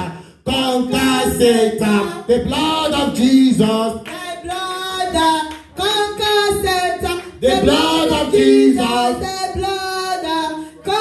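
Voices singing a worship song in sustained phrases, with short breaks between phrases.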